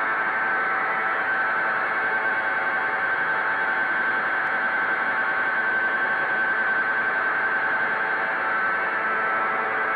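Sport motorcycle doing a stationary burnout: the engine is held steadily at high revs while the rear tyre spins against the road.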